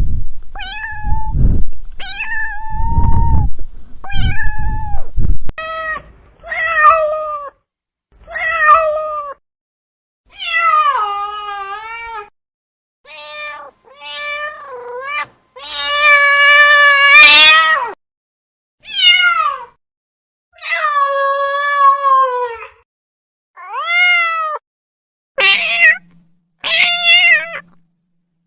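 Domestic cat meowing over and over, more than a dozen separate meows of varying length and pitch, some drawn out for a couple of seconds, with short silent gaps between them. Low rumbling noise sits under the first few meows.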